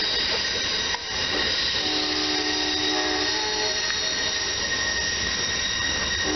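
Freight train rolling slowly through the yard, with steady high-pitched wheel squeal. A chord of held lower tones sounds for about two seconds midway.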